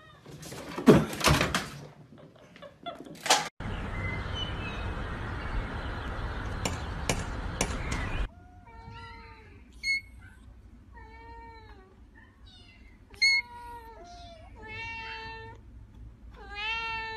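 A grey kitten giving a string of tiny, high meows, about eight short calls over the last nine seconds. Before them come a few loud thumps and then about five seconds of steady rushing noise.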